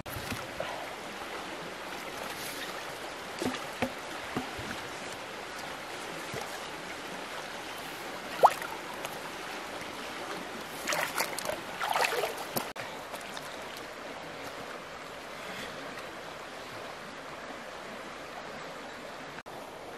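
River water flowing over shallows, with splashes and sloshing as hands pull branches and debris from around a pump's suction hose; a sharp splash about eight seconds in, and a run of louder splashing about eleven to twelve seconds in.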